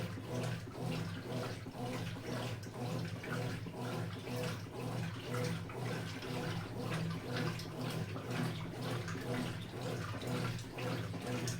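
Consul CWH11AB washing machine running a wash cycle: a steady, pulsing motor hum with water sloshing in the drum.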